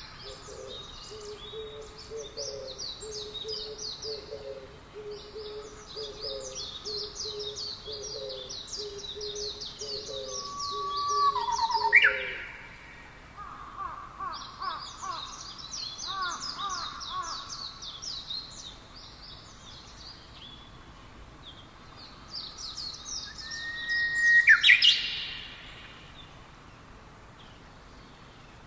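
Forest birds chirping and singing: bouts of rapid, high chirping trills come and go throughout, over a low note repeated about once a second for the first twelve seconds. A loud rising call sweeps up about twelve seconds in and again near the end.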